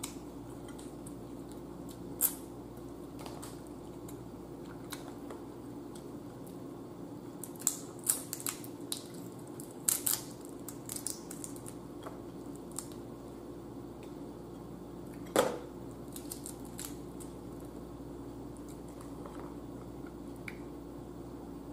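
Eating blue crab by hand: scattered clicks and cracks of crab shell being picked apart and chewed, in a cluster about eight to ten seconds in and one loud crack about fifteen seconds in, over a steady low hum.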